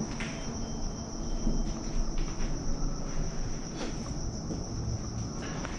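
Crickets trilling steadily, with a few scattered footsteps and scuffs on a gritty floor over a low rumble.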